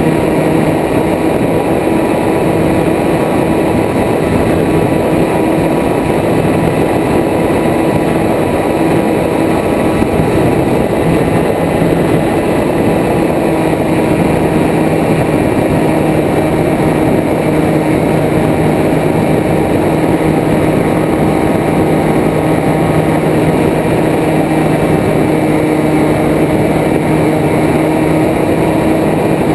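Propeller aircraft's engine droning at a steady, unchanging pitch in cruise, under a heavy rush of wind noise on the wing-mounted camera.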